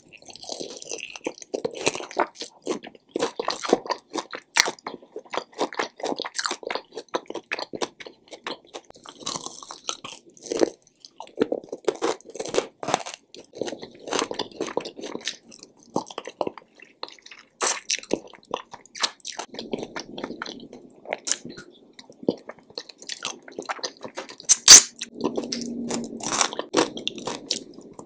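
Close-miked biting and chewing of fried chicken wings: irregular crunching and wet mouth noises. A sharp crack about three-quarters of the way through is the loudest sound.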